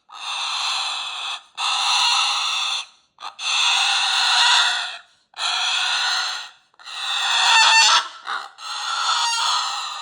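Hungry baby palm cockatoo chick begging: a run of about seven harsh, rasping calls, each about a second long with short breaks between them.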